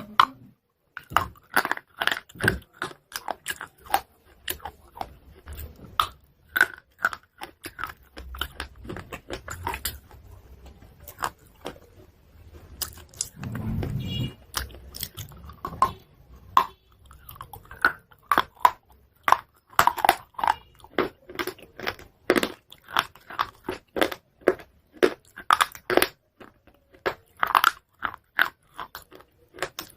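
Pieces of chalk being bitten and chewed close to the microphone: dense, sharp crunches, several a second, with a short lull and a low muffled rumble about halfway through.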